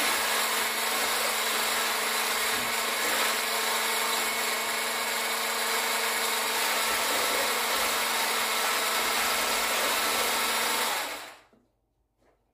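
Electric hand-held stick blender with a whisk attachment running steadily, whipping eggs and sugar, with an even motor hum. The motor cuts off about eleven seconds in.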